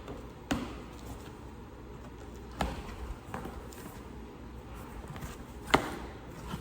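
Three sharp knocks or taps spread a couple of seconds apart, the last one the loudest, with a few fainter ticks between them over faint background noise.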